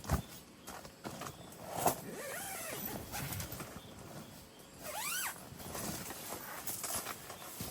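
A few bird calls, the clearest a single rising-and-falling call about five seconds in, with a couple of sharp knocks of camp gear near the start and about two seconds in.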